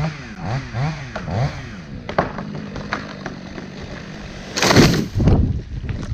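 Chainsaw blipped up and down in pitch several times in quick succession, then idling steadily with a few sharp knocks. A loud burst of noise comes about four and a half seconds in, with a second one just after.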